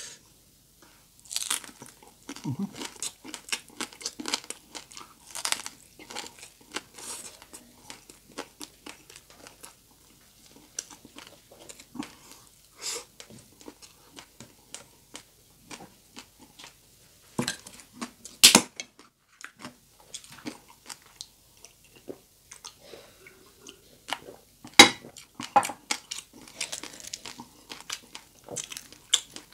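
A person biting into and chewing crispy deep-fried pork belly (lechon kawali) close to the microphone: dense crackling crunches of the fried skin, with two especially loud crunches about 18 and 25 seconds in.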